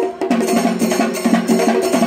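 Fast, rhythmic drumming with sharp, clacking stick strokes, about seven or eight a second, playing as loud music.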